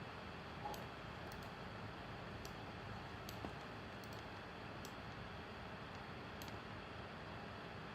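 Faint, irregular computer mouse clicks, about a dozen over several seconds, over a low steady hiss of room tone.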